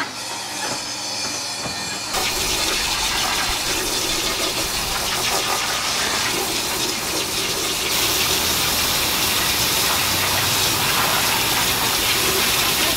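Steady rushing noise, growing louder about two seconds in and again near eight seconds.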